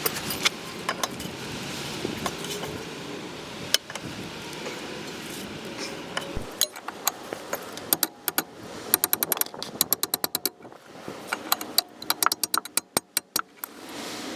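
Metal hand tools clinking against the car's steering parts, with scattered knocks and then runs of rapid, evenly spaced clicks in the second half.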